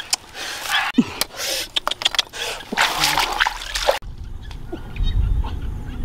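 Splashing and rustling in wet grass and shallow water, with scattered clicks of handling. About four seconds in it cuts abruptly to a quieter stretch of low wind rumble on the microphone.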